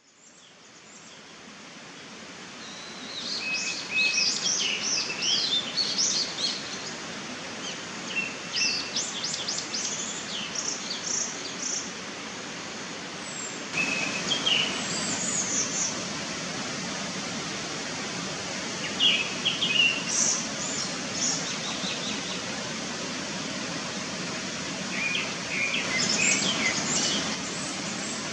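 Japanese thrush singing five bouts of quick, varied whistled phrases, with pauses of a few seconds between them. A steady background hiss runs underneath.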